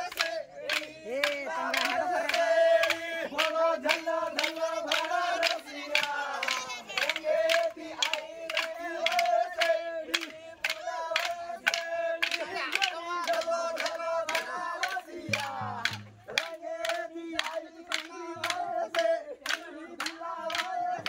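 A group chanting in unison over a steady droning tone, with sharp rhythmic strikes at about two to three a second. There is a short break about fifteen seconds in.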